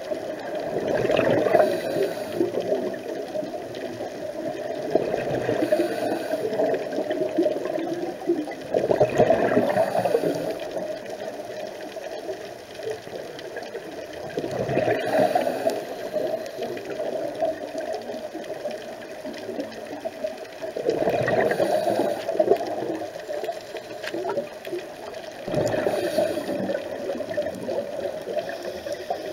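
Scuba divers breathing through their regulators underwater: exhaled air bubbling and gurgling in swells about every five to six seconds over a steady watery hiss.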